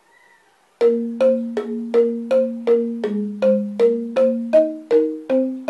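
Balinese rindik, a bamboo xylophone, struck with two padded mallets, playing the sangsih part. The notes come in a steady beat of about three strikes a second, starting about a second in, each strike a low note and a higher note sounding together and ringing briefly.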